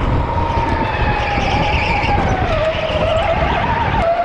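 Electric indoor go-kart motor whining at a steady pitch that dips about halfway through and then wavers, over a constant low rumble of the kart running on the track, heard from on board.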